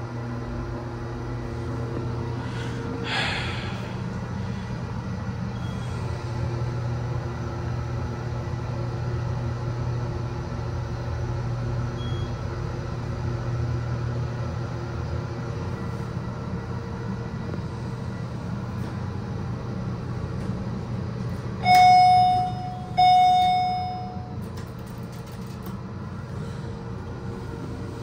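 Hydraulic elevator car travelling upward with a steady low hum, then two loud arrival chime tones about a second apart as it reaches the floor, near the end.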